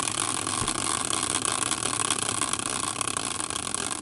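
Prize wheel spinning, its pointer flapper clicking rapidly against the pegs; the clicks start to slow and fade near the end as the wheel winds down.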